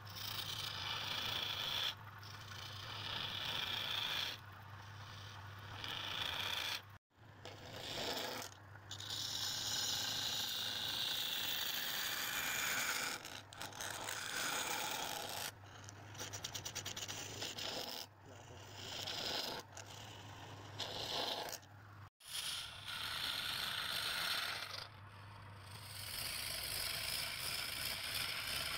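Wood lathe running while a turning tool cuts the spinning wood: a scraping noise over a low motor hum, coming and going in stretches of a few seconds, with two abrupt cuts to silence.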